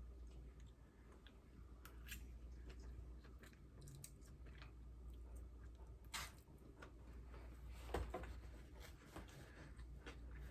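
Faint close-up chewing and crunching of food in the mouth, with scattered small clicks and a few louder crunches about two, six and eight seconds in.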